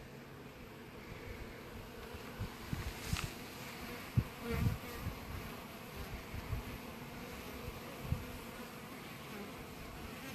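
Honeybees from an installed package buzzing in and around the emptied screened package box: a steady, even hum, with a few low thumps, the loudest about four seconds in.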